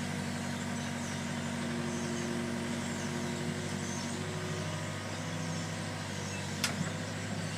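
Mini excavator's diesel engine running steadily while the hydraulics work the bucket against a boulder, with a held whine over the first half. One sharp click near the end.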